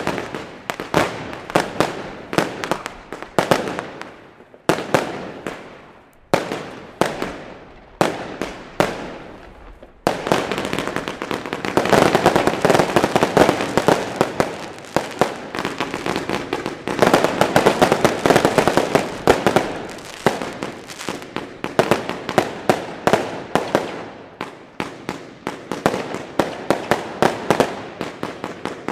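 Many aerial fireworks bursting in quick succession, with sharp bangs and crackling. The bursts come in separate clusters at first, then grow dense and near-continuous from about ten seconds in.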